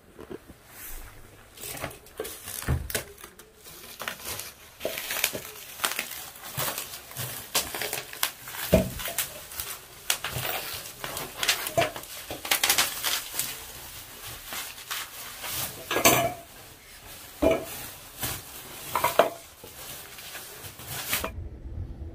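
Stainless steel bowls set in a wooden feeding table clinking and knocking as it is handled and unwrapped, with bubble wrap and plastic crinkling in irregular clicks and rustles.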